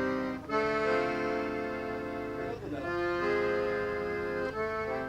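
Accordion playing a melody in held notes and chords, in three phrases of about two seconds each.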